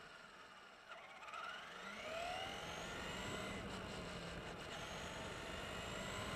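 Traxxas E-Maxx electric RC monster truck accelerating. About a second in, its motor whine rises in pitch, then settles into a steady high whine over a rushing noise as the truck rolls along the road.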